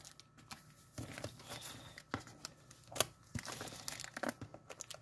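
Packaging being torn open and handled: scattered short tearing and crinkling sounds, with a sharper click about three seconds in.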